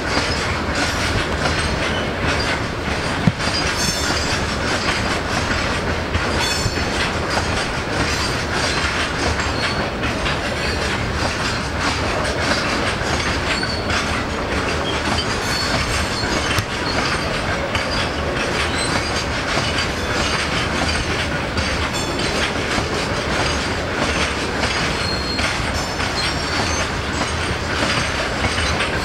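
Freight train of tank wagons rolling past, with a steady rumble and a continual clickety-clack of wheels over rail joints.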